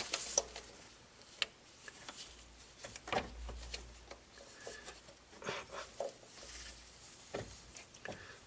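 Scattered light clicks, taps and rubbing from hands working at the plastic wiring connector of the A/C compressor clutch coil, trying to unplug it.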